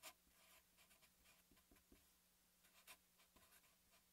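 Faint scratching of a felt-tip marker writing on paper, in short separate strokes.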